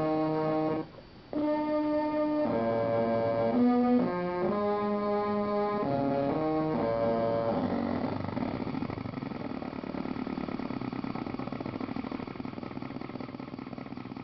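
Circuit-bent noise box played through a circuit-bent effects unit: buzzy, horn-like electronic drones that jump from pitch to pitch in steps, cutting out for a moment about a second in. After about seven seconds the pitched tones give way to a quieter, rough noise with no clear pitch.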